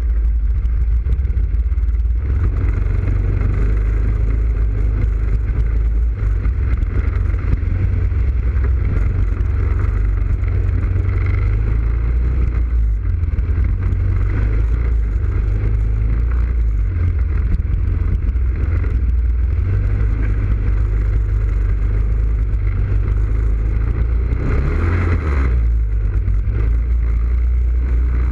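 ATV engine running steadily as the quad rides a muddy trail, a continuous low rumble; near the end it briefly gets louder and brighter, as if revved.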